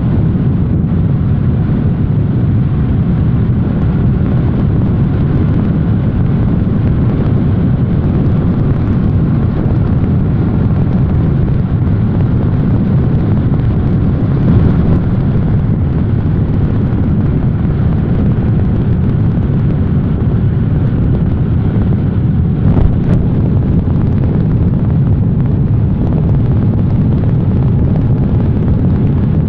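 Steady, loud low rumble of wind and road noise from a car moving alongside the train. There is one short knock about 23 seconds in.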